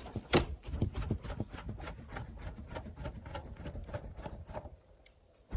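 Quick, irregular run of knocks and taps, several a second, as a wood cooking fire under a pot is worked to build it up; it stops near the end.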